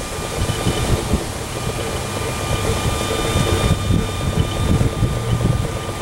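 Wind buffeting the microphone with an uneven low rumble, over a thin steady high tone.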